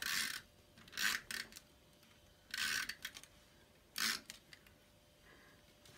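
Snail adhesive tape runner being drawn along a strip of card stock in four short strokes, spaced a second or more apart.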